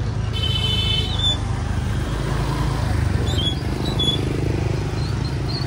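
Motor scooter engines running as they pass close by, a low rumble that swells in the middle, with people talking in the background and a few short high chirps.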